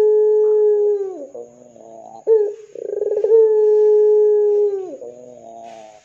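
Domestic ringneck (Barbary) dove cooing: a long held coo that drops in pitch at its end and runs into a low rolling burble, then a short note and a second long coo with the same falling ending and burble.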